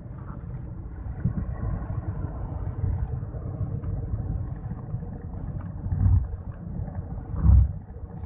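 Low rumble and road noise of a moving vehicle, with two heavier thumps a second and a half apart near the end.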